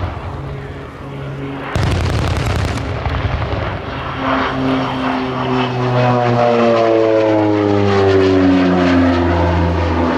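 North American OV-10B Bronco's twin turboprop engines and propellers on a display pass: the drone swells, then drops steadily in pitch as the aircraft goes by overhead. A loud crackling burst lasting about a second comes about two seconds in.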